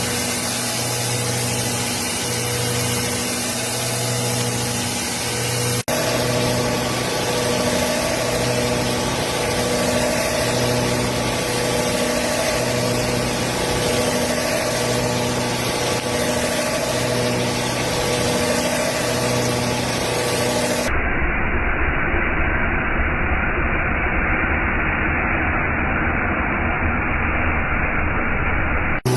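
CNC milling machine running steadily with a continuous hum and held tones. The sound changes abruptly about six seconds in and again about 21 seconds in, where it turns duller.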